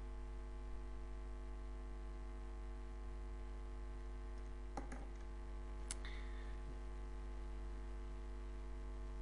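Steady electrical mains hum in the recording, with a couple of faint clicks around the middle.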